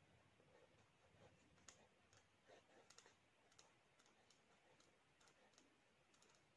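Near silence with faint, irregular ticks and scratches of a pen writing on paper.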